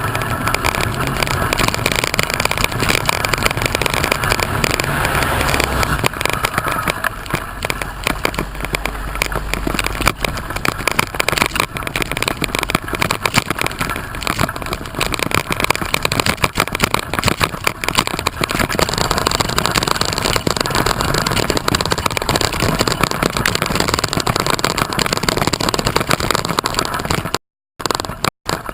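Steady, crackly rush of wind buffeting the microphone while on the move. It cuts out twice briefly near the end.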